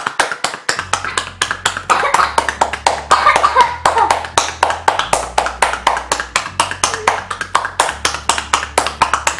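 Cupped-palm percussion on a child's back: a fast, even run of slaps, about six a second. This is drainage massage tapping to loosen phlegm in bronchitis.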